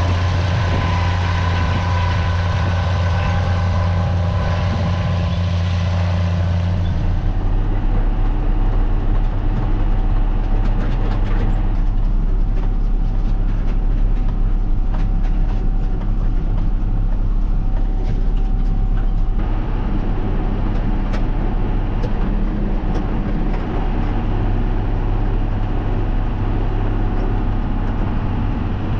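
Diesel farm tractor engine running steadily under load. About seven seconds in the sound changes abruptly to a lower rumble with faint rattles.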